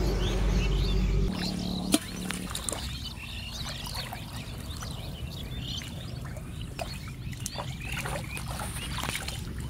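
Many short, high animal chirps over a faint low rumble, with water sloshing as a person wades in shallow water. A steady low hum at the start cuts off after about a second, and a single sharp knock comes about two seconds in.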